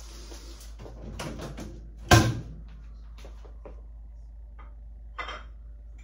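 Kitchen handling sounds: a rustle, then one sharp knock about two seconds in, then a few light clicks and taps as a plastic margarine tub is handled on the counter.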